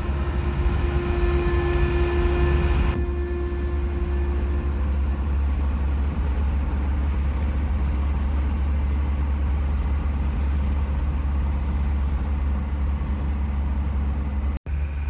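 Land Rover Defender driving on the highway: a steady low engine and road rumble.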